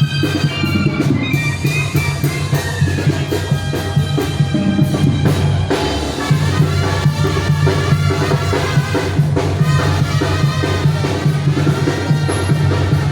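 Zacatecan tamborazo band playing: the tambora bass drum keeps a steady beat under trumpets and saxophones carrying the melody.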